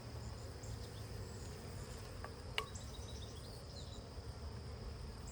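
Honeybees buzzing around an open hive, a steady hum, with a single sharp click about two and a half seconds in.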